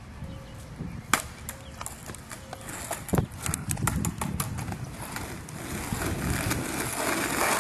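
A few sharp clacks and knocks, then skateboard wheels rolling on asphalt, the rumble growing steadily louder over the last two seconds as the board approaches.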